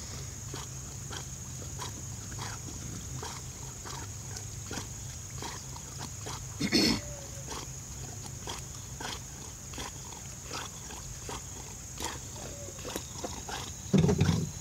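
A dog breathing hard in short, quickly repeated breaths, with a louder burst about halfway through and another near the end.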